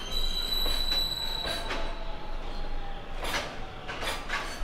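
Freight train passing through without stopping, with a high steady wheel squeal for the first second and a half, then the wheels clacking over rail joints in close pairs.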